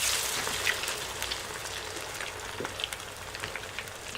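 Salmon patty going into hot grease in a pan: a sudden sizzle, strongest at the start, that settles into a steady frying hiss with scattered crackles and pops.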